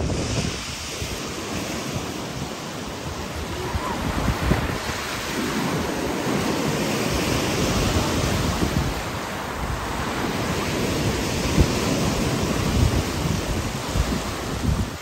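Sea surf breaking and washing up a pebble beach, swelling and easing every few seconds, with wind buffeting the microphone.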